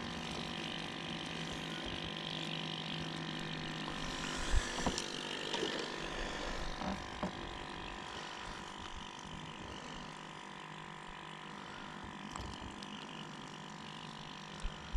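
Steady hum of a small electric motor on a fishing boat, with a few faint clicks from handling the line and hook about four to seven seconds in.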